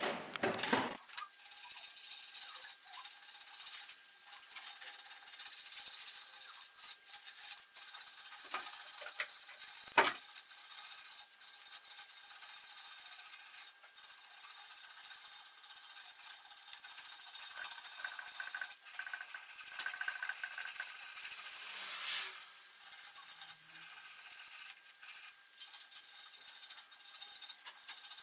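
Parts of a Singer 29K33 cobbler's sewing machine being fitted by hand: small metal clicks, rattles and rubbing, with one sharper knock about ten seconds in.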